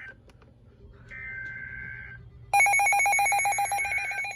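Emergency Alert System SAME data-header bursts, one about a second in, then a much louder, rapidly pulsing alert tone cuts in about two and a half seconds in.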